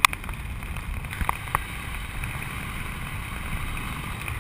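Steady low wind rumble buffeting the microphone while hanging under an open parachute canopy, with a sharp click just as it begins and two brief knocks a little over a second later.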